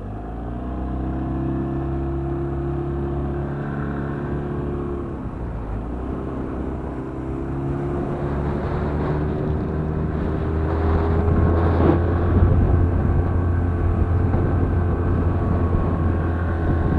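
Motorboat engine opening up, its pitch rising in the first second, easing off briefly around five seconds in, then climbing again and running hard. Water rushes and spray splashes along the hull throughout.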